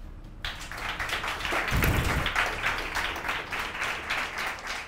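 Audience applauding, starting about half a second in after a short pause, with a brief low thud about two seconds in.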